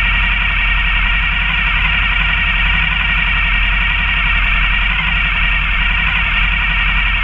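Steady, heavily distorted drone of vehicle engines idling in stopped traffic.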